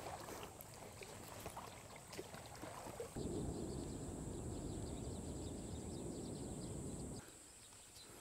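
Faint outdoor ambience by the water: a low rushing noise that sets in about three seconds in and cuts off near the end, over a steady thin high-pitched whine, with a few faint clicks in the first seconds.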